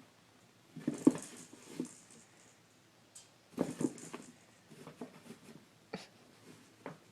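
Cat batting and scrabbling at a cardboard-box toy: irregular bursts of cardboard scraping and knocking, the loudest about a second in and again a few seconds later.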